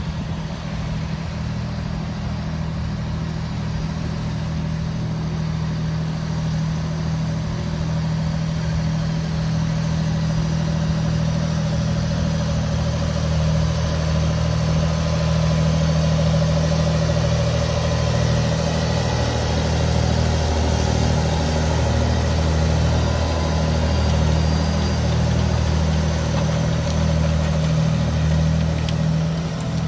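John Deere 8530's 9.0-litre six-cylinder diesel running steadily under heavy load while dragging a seven-furrow plough. It grows louder as the tractor comes close, about halfway through.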